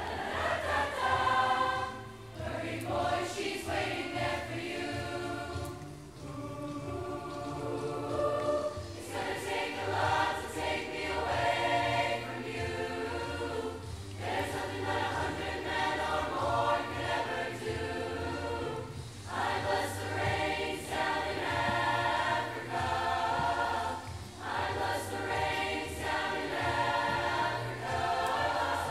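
A large choir singing together, in phrases of a few seconds each with short breaths between, heard from the audience seats of the hall.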